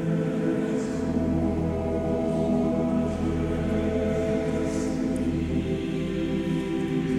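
A choir singing slow, sustained chords, the held notes ringing on in a large stone cathedral.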